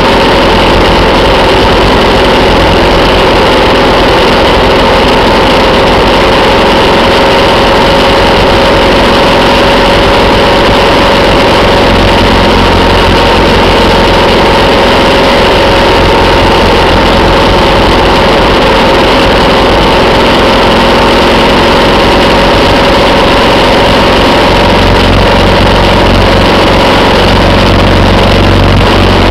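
Motorcycle engine running at a steady highway cruise, its note holding even, under loud wind rush on the microphone.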